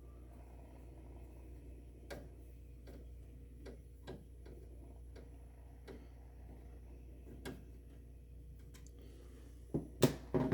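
Faint, irregular clicks of a screwdriver backing screws out of a copier's metal rear panel, over a low steady hum, with a few louder knocks near the end.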